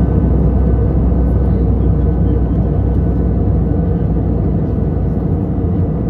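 Steady low rumble of airflow and engine noise inside the cabin of an Airbus A320 in flight, heard from a window seat over the wing as the airliner starts its descent. A few faint steady whine tones sit above the rumble, which eases slightly near the end.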